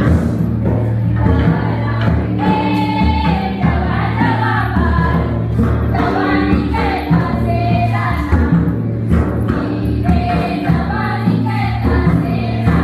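Music: a group of voices singing a folk song in repeated phrases over a steady drum accompaniment.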